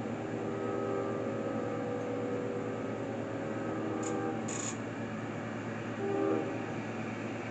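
Union Pacific diesel locomotive's air horn sounding a chord: one long blast of about four seconds, then a short blast about six seconds in, part of the long-long-short-long signal blown approaching a grade crossing.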